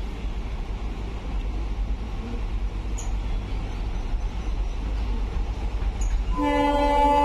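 WDP4B diesel locomotive approaching, a low rumble that slowly grows louder, then about six seconds in its air horn sounds a long chord of several tones that carries on to the end.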